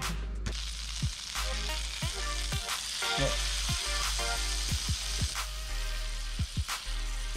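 Breaded bluegill fillets sizzling in a frying pan of hot butter. The sizzle comes in about half a second in. Background music with a steady beat plays under it.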